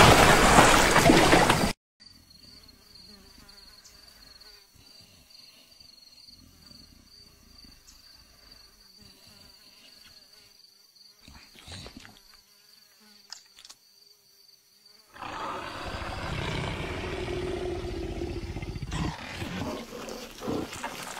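Splashing water from a large body tipping into a waterhole, cut off abruptly about two seconds in. Then faint savanna ambience with a thin insect buzz. From about fifteen seconds a louder, rough animal-like noise from a cartoon round leopard as it loses its grip on a tree branch.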